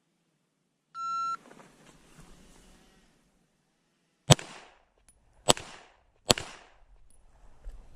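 A phone shot-timer beeps once, a short steady tone, then about three seconds later a Glock pistol fires three shots, the last two closer together, each followed by a short echo.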